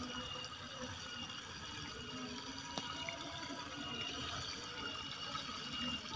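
Quiet, steady outdoor background hiss with faint high tones running through it, and one small click about three seconds in.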